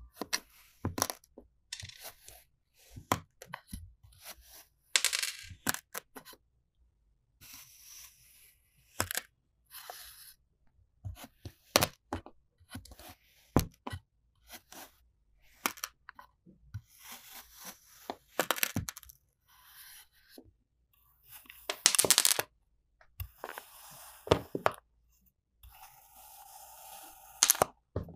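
A knife slicing through moulded kinetic sand blocks: gritty crumbling and scraping as the sand is cut and falls apart, with sharp, irregular clicks as the blade strikes the hard table underneath.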